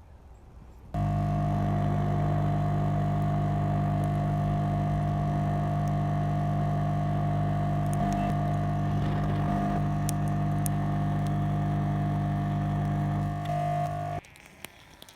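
A machine humming steadily with several fixed tones, switching on suddenly about a second in and cutting off abruptly near the end.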